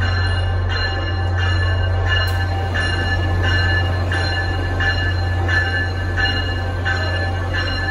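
An arriving NJ Transit train's bell ringing steadily, about three strokes every two seconds, over a constant low hum from the idling trains in the terminal.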